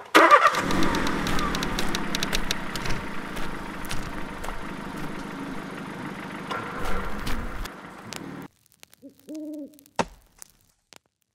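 A loud, dense wash of noise with a low rumble that cuts off suddenly about eight and a half seconds in. In the quiet that follows comes a single owl hoot, then one sharp click.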